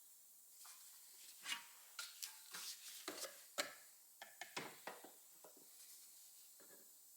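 Scattered light clicks, taps and small knocks of parts being handled, coming thick and fast from about a second and a half in until about five seconds, then sparse.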